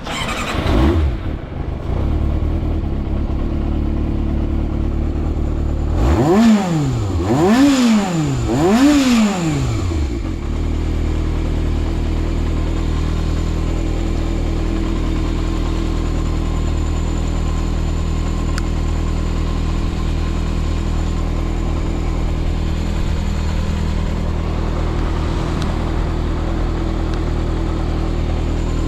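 Yamaha XJR400's air-cooled inline-four, breathing through an SP Tadao Super Combat full exhaust, idling steadily, then blipped three times in quick succession about six seconds in, the pitch rising and falling with each blip, before settling back to idle. It revs up cleanly with no abnormal engine noise.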